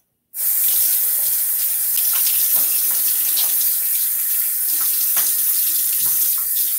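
Bathroom sink tap turned on and running hard into the basin, water splashing under the stream, as in rinsing during a wet shave. It starts suddenly about a third of a second in and then runs steadily.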